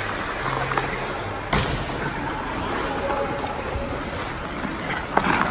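Ice hockey rink noise during play: a steady wash of arena sound with faint voices, and one sharp crack about a second and a half in from a hard impact in the play on the ice.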